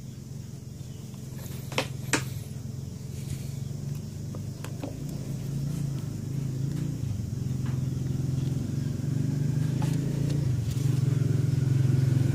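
A motor engine running steadily, a low hum that grows gradually louder, with two sharp clicks about two seconds in.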